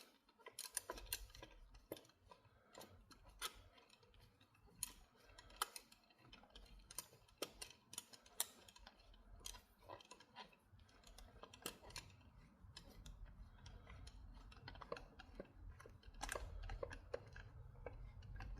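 Faint, scattered clicks and taps of a Remington 760 rifle's parts being handled and fitted together as the stock is lined up and put back on, with a low rumble growing in near the end.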